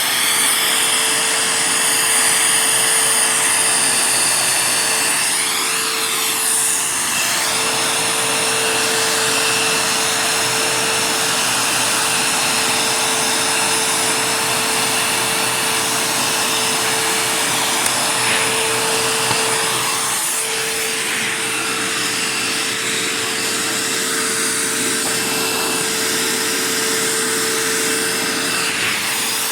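Dirt Devil Jaguar Featherlite bagged upright vacuum cleaner running steadily: a constant motor whine over the rush of air. The air noise shifts briefly about six and twenty seconds in.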